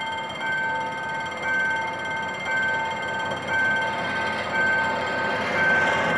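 Level-crossing warning alarm sounding: a steady electronic tone with a higher beep pulsing about once a second. Under it the GM GT-22CW-2 diesel locomotive's engine grows louder toward the end as it reaches the crossing.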